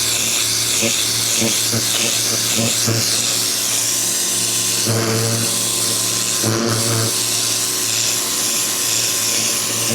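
Ryobi 2000 PSI electric pressure washer running: a steady motor buzz under the continuous hiss of the high-pressure water spray.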